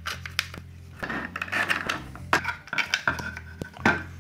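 3D-printed plastic parts clicking, knocking and scraping as short connector pieces are pushed into the slots of larger printed plates and the plates are shifted on a tabletop: a series of light, irregular clicks.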